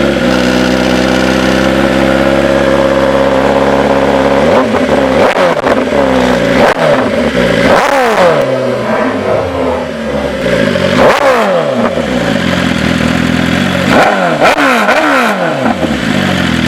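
BMW S1000 RR inline-four superbike with an Austrian Racing full-system exhaust, very loud: it idles steadily, then from about four seconds in is revved hard in repeated quick throttle blips, each a sharp rise and fall in pitch.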